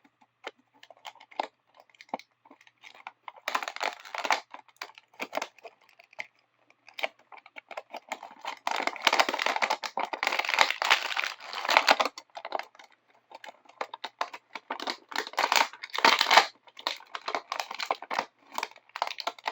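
Toy packaging being opened by hand: irregular crinkling, tearing and clicking of the box and its inner packaging, with a longer stretch of steady crinkling around the middle.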